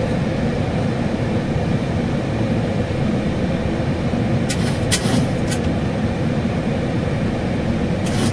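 Steady drone inside a Boeing 737NG's cockpit in climbing flight, a mix of airflow and engine noise, with a few brief clicks about halfway through.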